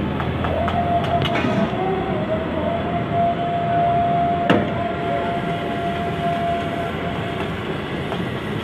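Liver frying in a steel karahi over a gas burner: a loud, steady sizzle and burner roar. A thin, steady whistling tone runs from about half a second in to near the end, and a single sharp clack comes about four and a half seconds in.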